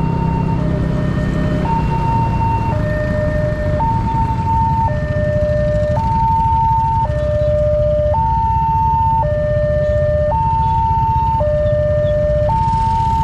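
Emergency vehicle's two-tone hi-lo siren, switching between a high and a low note about once a second, over a steady low rumble of road and engine noise.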